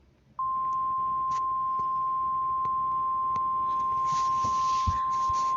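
NOAA Weather Radio warning alarm tone: a single steady tone near 1 kHz that switches on sharply about half a second in and holds, over faint radio hiss and crackle. It is the alert tone that comes before a warning is read out.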